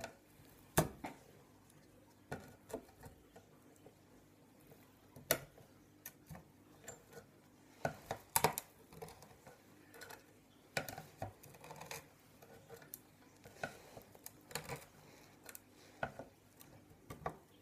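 A flat-bladed screwdriver prying and scraping at a plastic connector on a computer motherboard: irregular sharp clicks and taps of metal on plastic and pins, with a few louder snaps.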